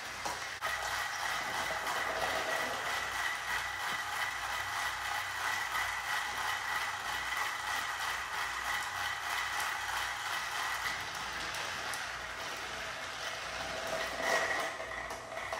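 Battery-powered toy train motors whirring with a steady high whine, their wheels clicking and rattling over plastic track. A louder clatter comes near the end.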